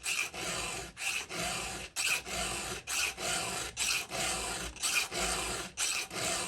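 Chainsaw file rasping across a cutter tooth of a new saw chain in steady strokes, about one a second, each opening with a brief sharper scrape. This is the first hand sharpening of a factory chain, cleaning up the edge and raising a burr on the tooth.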